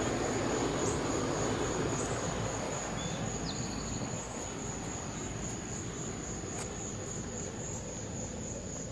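Crickets trilling steadily in a continuous high-pitched evening chorus, with some handling noise from the moving phone in the first few seconds.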